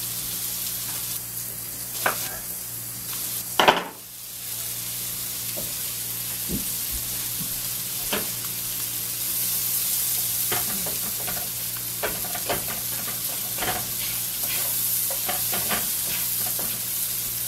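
Wild mushrooms sizzling in butter in a skillet, with a slotted spatula scraping and clicking against the pan as they are stirred. A sharp knock sounds a little before four seconds in.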